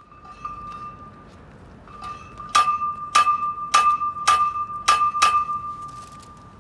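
Bell-like chime tones sounding from a sound installation beneath a cast-iron drain grate. A steady ringing tone is joined by six sharp struck chimes about half a second apart, each ringing on, and the tone continues faintly after them.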